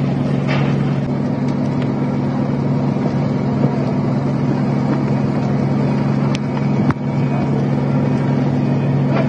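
A steady engine-like drone with a hiss over it, and a single sharp click about seven seconds in.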